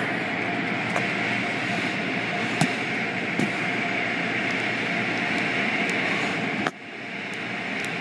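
Automatic car wash's rotating brushes scrubbing across the car's body and windows, heard from inside the car as a steady churning swish with a few light knocks. The noise drops off sharply about two-thirds of the way through, then builds again.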